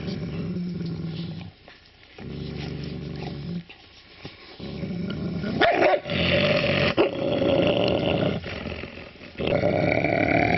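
Tibetan mastiff growling in deep bouts with short breaks. The growls get much louder from about halfway through.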